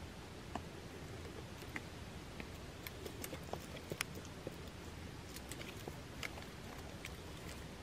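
Faint scattered small clicks and ticks over a quiet outdoor background: the small mouth and handling sounds of a resting man drinking from a can and chewing. A few sharper clicks come around three to four seconds in.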